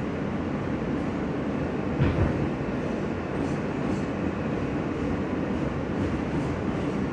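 R160 subway car running at speed, heard from inside the car: a steady rumble of wheels on rail. One heavier low thump comes about two seconds in.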